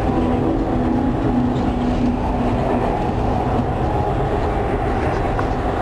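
Dubai Metro train running along the line, heard from inside the front car: a steady rumble of wheels and running gear, with a faint hum that fades out about three seconds in.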